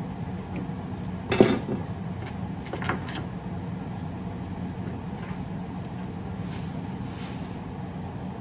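Steady low kitchen hum with one sharp clack about a second and a half in and a lighter knock about a second later, the sort of knock a cupboard door or pan makes.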